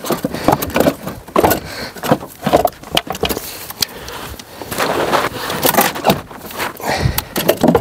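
Irregular clicks, knocks and scraping of gloved hands handling a car battery's terminal cable and the fittings around it in the battery bay.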